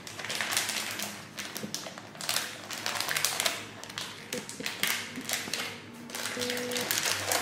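Clear plastic sleeve around a photobook crinkling and rustling as it is handled and turned over, in a quick, irregular crackle.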